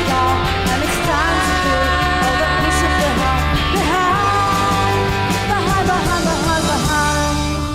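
Rock song with a sung vocal over bass, drums and guitar.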